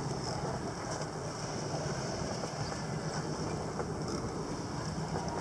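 Steady wind and water noise over open water, with a low steady hum underneath.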